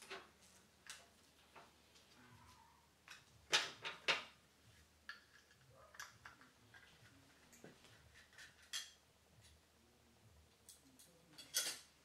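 Scattered clicks, taps and light rustling of power-supply cables and connectors being handled in a PC case, with the loudest cluster about three and a half to four seconds in and another sharp one near the end.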